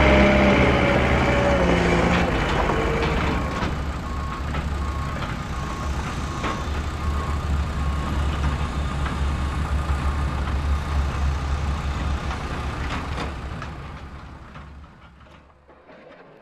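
Heavy construction machinery running with a low diesel rumble. From about three seconds in, a reversing alarm beeps at an even pace. The rumble fades away near the end.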